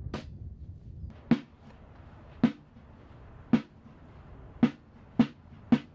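Single sharp drum taps keeping the marching cadence, about one a second at first, then about two a second from around four and a half seconds in.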